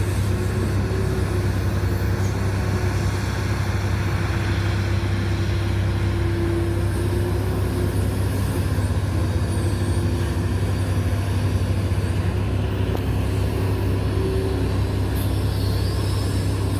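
Heavy diesel machinery running steadily: the engine of a Komatsu PC1250 hydraulic excavator working under load while loading a Komatsu HD785 mining dump truck. It is a loud, constant low drone with a fainter higher tone that wavers.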